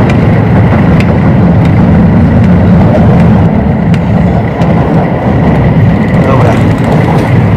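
A spoon stirring soup in a steel pot, with a few light clinks against the pot, over a loud, steady low rumble.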